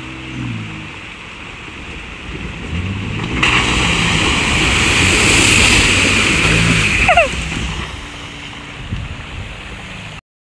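Ford F-150 Raptor pickup driving through a shallow creek crossing: the engine runs throughout, and from about three and a half seconds in, the tyres throw up a loud rush of splashing water. Just after seven seconds, a short falling squeal sounds; then the engine carries on more quietly as the truck pulls away.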